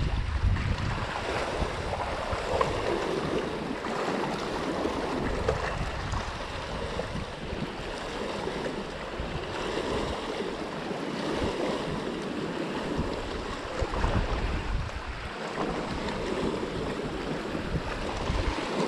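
Small wind-driven waves lapping against a rocky lakeshore, with wind buffeting the microphone.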